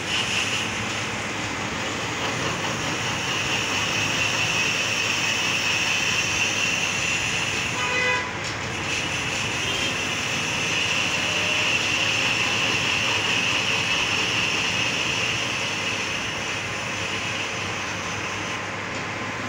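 Metal lathe running with a bike wheel chucked in it, the cutting tool turning the hub and giving a steady high-pitched cutting whine over the machine noise. About eight seconds in the whine breaks off briefly and a short pitched tone sounds, then the cutting resumes.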